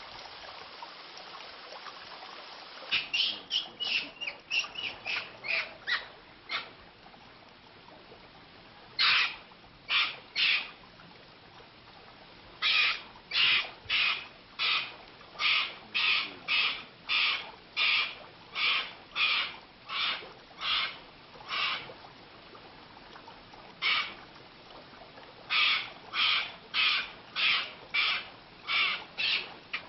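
An animal calling with short, harsh, repeated calls, about two a second, in runs separated by pauses of a few seconds.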